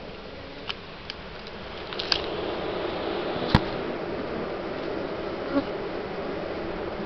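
A honeybee colony buzzing, growing louder about two seconds in. A few sharp clicks and one loud knock come over the buzz, the knock about halfway through.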